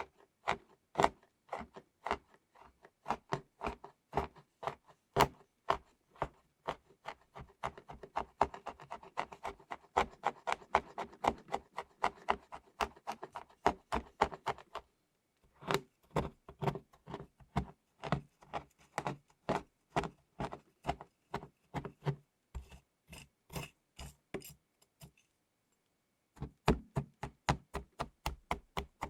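Rapid, irregular knocking and tapping on chocolate, a long run of sharp strikes with a brief break about halfway and a longer pause near the end.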